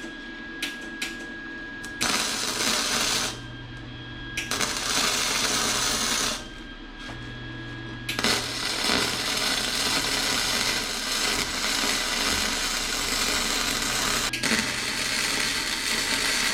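Electric welder filling holes in a steel exhaust pipe: the arc runs in four stretches of steady noise that start and stop abruptly, the longest about six seconds, with short pauses between beads.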